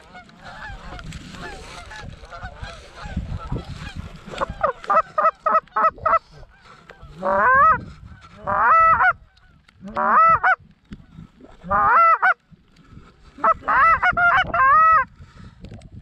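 Canada goose honking: faint, scattered calls at first, then about four seconds in a quick run of short honks, followed by loud, separate honks in bursts.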